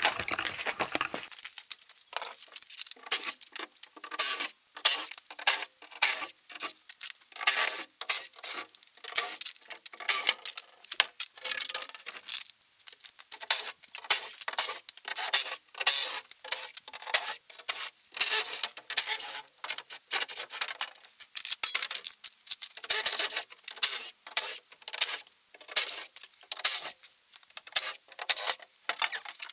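A quick, irregular run of short scraping and rubbing noises, several a second, from hands working on the wooden shipping crate to free the machine inside.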